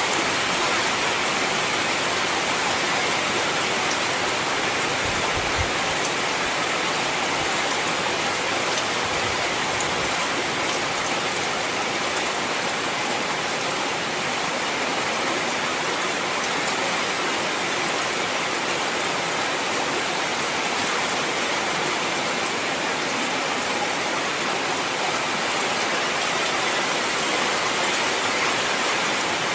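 Heavy rain falling steadily, a dense even hiss of many drops with a few single drop hits standing out.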